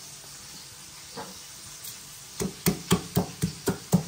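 Rapid, even knocking of a kitchen utensil, about four sharp strikes a second, starting about halfway in after a quiet stretch of low background noise.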